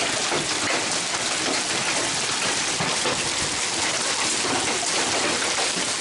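Heavy rain mixed with golf-ball-size hail pelting down: a dense, steady patter of countless small impacts.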